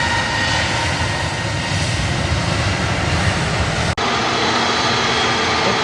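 Jet airliner engines running loud and steady, a rumble with a high whine over it. About four seconds in the sound drops out for an instant, then comes back with less rumble.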